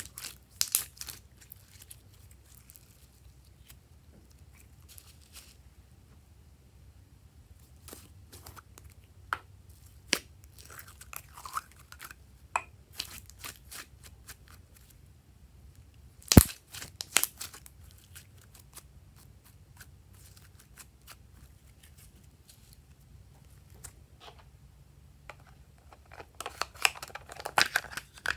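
Glossy slime being squeezed and stretched by hand: faint, scattered squishes and small clicks, with one sharp click about halfway through. Near the end, a denser run of crackles and taps as a plastic lotion bottle is handled.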